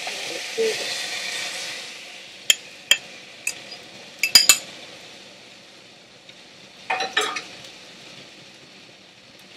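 Egg sizzling in a hot frying pan with softened Chinese okra, the sizzle dying down over the first few seconds. A few sharp clinks of a utensil against the pan come a couple of seconds in and again near the end.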